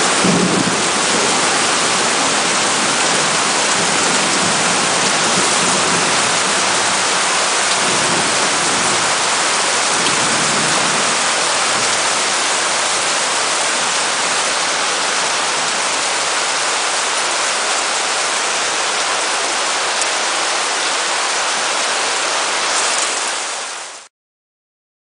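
Heavy tropical rain falling in a steady loud downpour, a dense even hiss that stops abruptly near the end.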